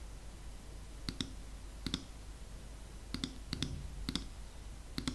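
Clicks of a computer's pointing-device button while editing a video: about eight sharp, irregular clicks, several in quick pairs, as a right-click menu is opened and an item chosen.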